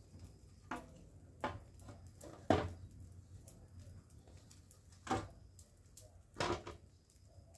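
Short, separate rustles and crunches of a sack being handled on dry leaf litter, about five in all, the loudest about two and a half seconds in, over a low steady hum.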